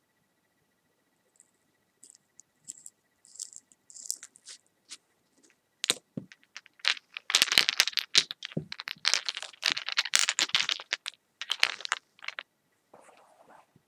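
Close-miked crackling, clicking and scraping of small objects being handled: sparse ticks at first, then a dense stretch of crackling and scratching for several seconds about halfway through.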